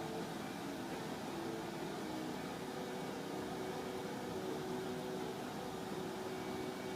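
Steady background hum and hiss of room noise, like a fan or appliance running, with faint steady tones in it.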